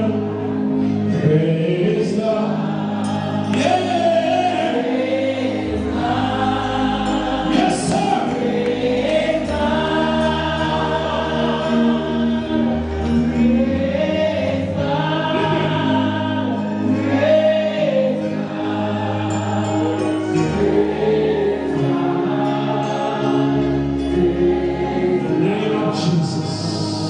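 Church congregation singing a gospel song together, with instruments playing a bass line of held notes that change every couple of seconds underneath.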